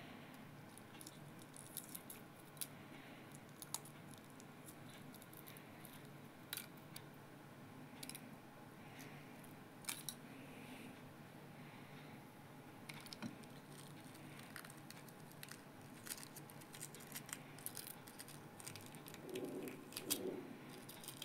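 Faint crackling and small sharp clicks of hard-boiled eggshells being cracked and peeled off by hand.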